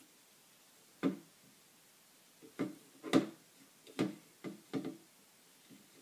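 Handling noise from a flower loom and yarn as the yarn is tied off: a handful of light, irregular knocks and clicks, the loudest about three seconds in.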